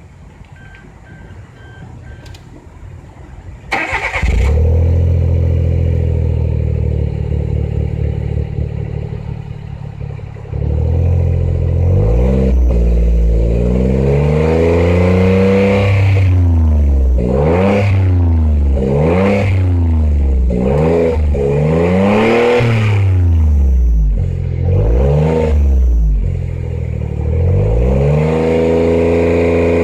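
Suzuki Jimny JB23's 660 cc turbocharged three-cylinder engine breathing through a Suzy Sports Dynamic Sport Muffler Type 2 aftermarket exhaust. A few short beeps, then the engine starts about four seconds in and idles. From about ten seconds it runs louder and is revved up and down repeatedly, blip after blip.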